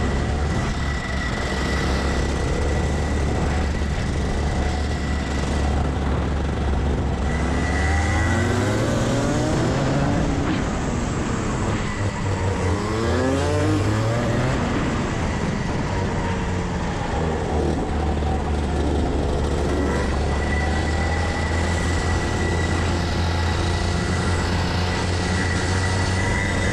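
Kart engine running under throttle on a dirt track, heard from the driver's helmet; its pitch falls and rises through the middle as the throttle is lifted and reapplied for corners. A thin steady high whine sits over the engine for much of the time.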